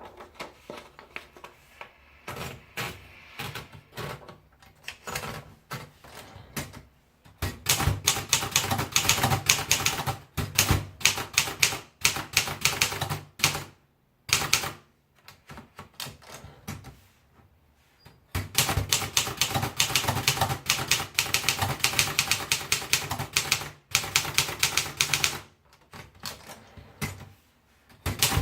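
Princess 100 typewriter being typed on: a few separate key strikes at first, then two long runs of rapid keystrokes with a pause between them, and slower strikes near the end.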